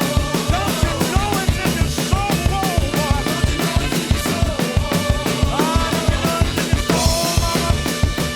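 Drum kit playing a busy funk groove of kick, snare and rimshots along with a recorded band track, whose pitched lines bend and slide above the drums.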